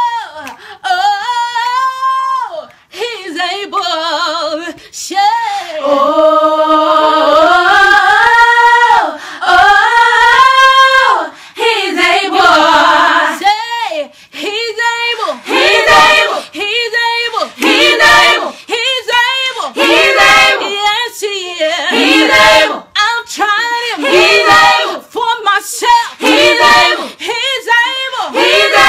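A woman singing a gospel song a cappella, multitracked into several layered voices singing together, with held notes and quick vocal runs.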